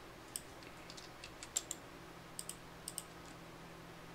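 Computer mouse and keyboard clicks: about a dozen sharp taps scattered across four seconds, several in quick pairs.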